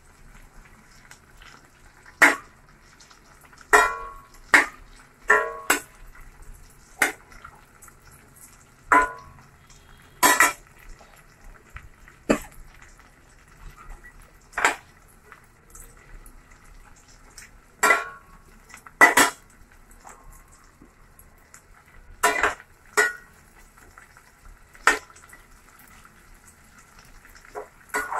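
Spatula scraping and knocking against a stainless steel pot every second or two, at irregular intervals, as prawns are turned while they fry in butter and oil. A faint steady sizzle of the frying runs underneath.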